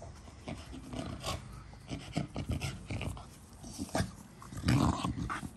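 A dog breathing hard in short, irregular bursts as it runs back with a tennis ball in its mouth, the loudest burst near the end.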